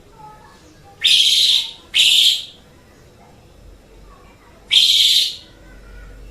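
Asian pied starling (jalak suren) giving harsh, scratchy calls, each about half a second long: two a second apart starting about a second in, then one more near the end.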